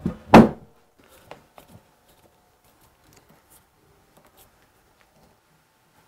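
A single loud wooden thunk shortly after the start as a heavy wooden slab is set into position on the workbench, followed by a few faint taps and clicks.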